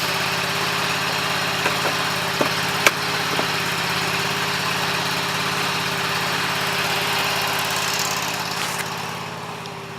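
A vehicle engine idling steadily, with a few light clicks, the sharpest about three seconds in; the engine grows quieter near the end.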